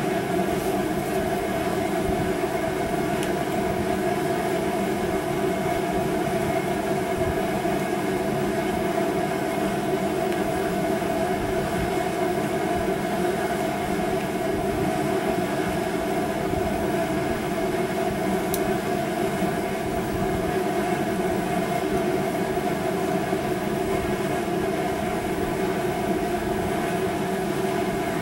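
Steady mechanical drone with several held tones, unchanging throughout.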